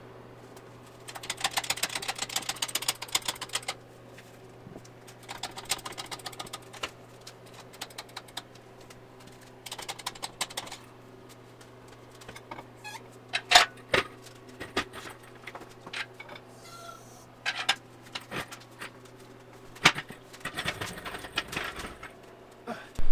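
Bursts of rapid metallic clicking and rattling, with a few sharp knocks in the second half, as a hydraulic engine hoist lifts the knee casting off a Bridgeport milling machine. A steady low hum runs underneath.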